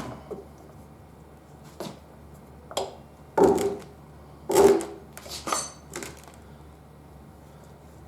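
Tyre levers knocking and clinking against a motorcycle wheel rim and the tyre-changer rig as a very stiff tyre bead is worked over the rim. There are about six separate metallic knocks at uneven intervals.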